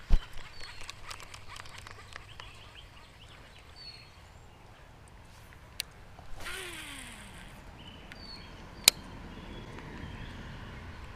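A sharp knock right at the start, then scattered light clicks. About six and a half seconds in, a baitcasting reel's spool whirs as line pays out on a cast, the whir falling in pitch as the spool slows, and a single sharp click follows near nine seconds. Faint bird chirps come and go.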